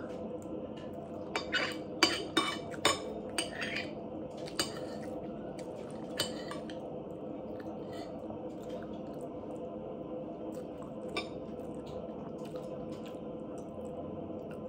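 Metal spoon and fork clinking and scraping against a plate, with a run of clinks in the first few seconds and a few scattered ones later, over a steady low hum.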